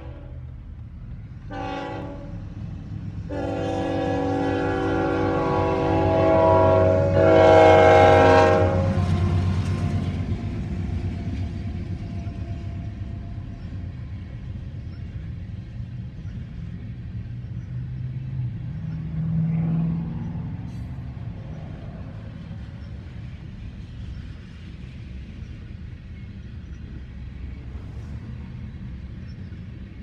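Union Pacific ET44AH diesel locomotive's air horn blowing for a grade crossing: a blast ending just after the start, a short blast, then a long blast that grows loudest as the locomotive passes. After that the train of loaded oil tank cars rolls by with a steady rumble.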